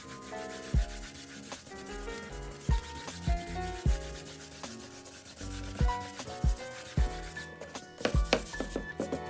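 Bristle brush scrubbing acrylic paint back and forth across a stretched canvas, a steady rasping rub, with soft thumps now and then and background music notes underneath. The thumps come closer together near the end.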